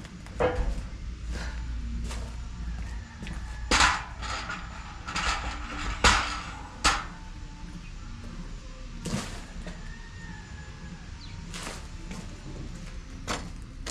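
Metal knocks and clanks from a manual screen-printing carousel as its orange hub section is lifted and set down onto the stand's central post. Several sharp knocks spread over the time, the loudest a little under four seconds in and around six seconds in, with a low rumble early on.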